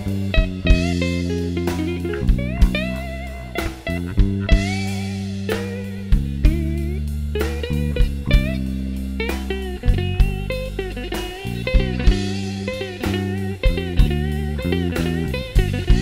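Live blues band playing an instrumental passage: a guitar solo whose notes bend in pitch, over a bass line and a drum kit keeping a steady beat.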